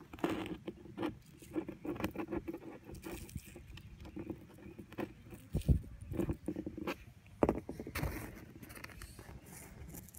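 Dry mud of a mud dauber nest crumbling and scraping under the fingers, with small crackles and bits of dirt pattering onto a hard surface. There are two louder knocks, one a little past halfway and one about three-quarters of the way in.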